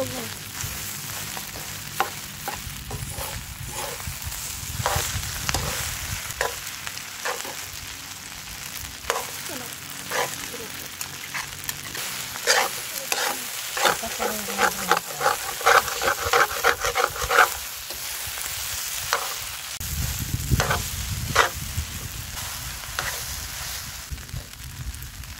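Fried rice sizzling in a large metal wok while a metal utensil stirs it, scraping and clinking against the pan. The strokes come quickest in a run about halfway through.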